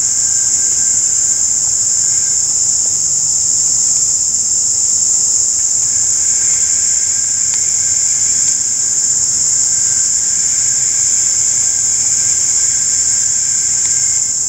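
Chorus of insects singing: a loud, continuous high shrill that never breaks, with fainter, lower thin tones fading in and out.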